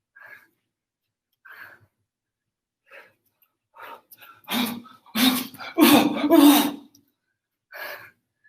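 A person's short, forceful breath shouts, like the sharp exhalations or kiai that go with kicks and strikes. Faint puffs of breath come first, then about five louder shouts in quick succession from about four and a half seconds in.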